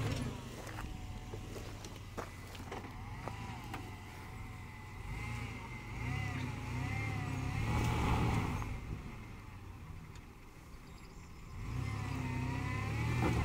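Mitsubishi Montero Sport's engine working under load while crawling off-road over rough, steep ground. It swells louder around the middle and again near the end, with a high wavering whine above the engine note and a few short knocks.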